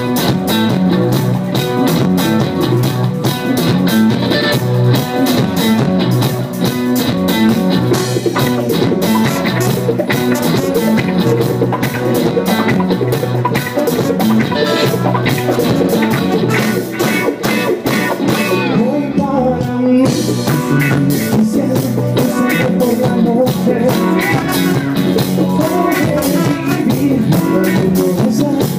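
A live rock band playing a song, with guitar and a drum kit keeping a steady beat. The cymbals drop out for about a second around two-thirds of the way in.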